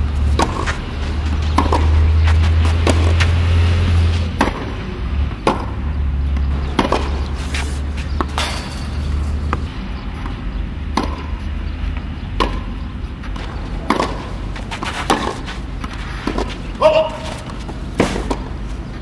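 Tennis balls struck with racquets in a rally on a clay court: sharp pops of strings on ball about once a second, with weaker knocks of balls bouncing between them. A low rumble runs under the first half.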